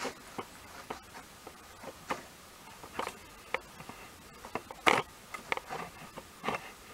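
Faint handling noise from a handheld camera being moved about at close range: scattered light clicks and small knocks, the sharpest about five seconds in.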